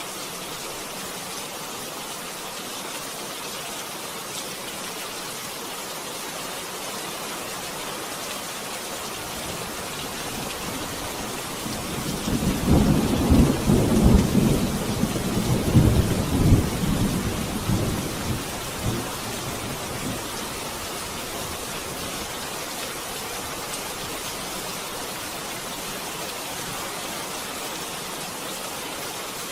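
Steady rain hissing, with one long roll of thunder that builds about ten seconds in, rumbles loudest through the middle and fades away by about twenty seconds in.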